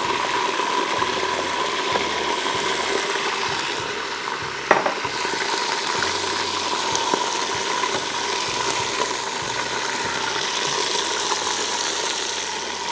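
Mutton shank pieces sizzling as they fry with browned onions in oil in a pressure cooker, stirred with a spatula. One sharp knock of the spatula against the pot about five seconds in.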